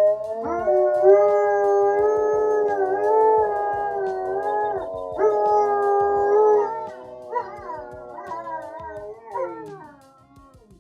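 Dogs howling: two long held howls, then several shorter howls that fall in pitch and fade away near the end.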